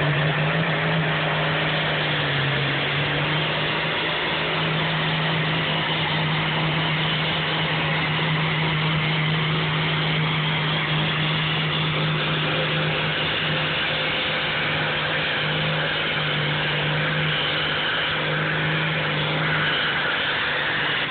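Pulling tractor's diesel engine at full throttle, hauling the weight sled down the track under heavy load. The engine note rises in the first second, then holds high and steady, wavering a little near the end.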